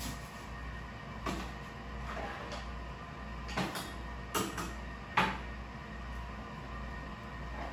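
Wire whisk knocking and scraping against a mixing bowl as cake batter is stirred: a few separate clacks, the loudest about five seconds in.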